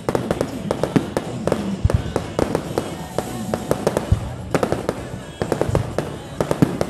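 Fireworks display: shells bursting overhead in a rapid, irregular string of bangs and crackling pops, several a second, with a couple of deeper booms.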